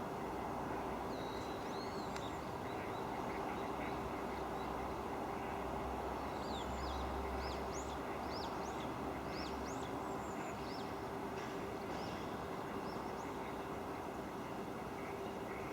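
Barn swallows twittering: a string of quick, high chirps, a few about a second in and a busier run through the middle, over a steady low hum and rumble.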